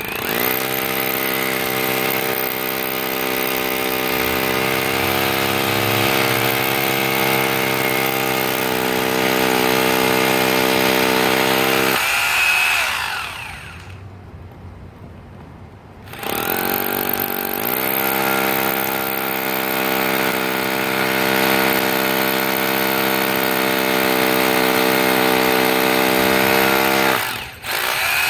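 SDS hammer drill boring into a concrete wall: two long runs of about twelve and eleven seconds, each spinning up at the start and winding down at the end, with a short break between them and a brief stop and restart near the end.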